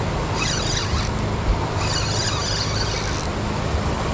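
Spinning reel squealing in two bursts, a short one and then a longer one, as a hooked pike is fought, over a steady rushing background.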